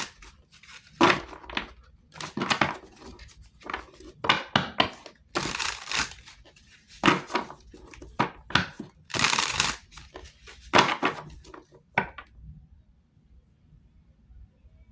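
Tarot cards being handled and shuffled: a string of irregular crisp rustles and riffles that stops about twelve seconds in.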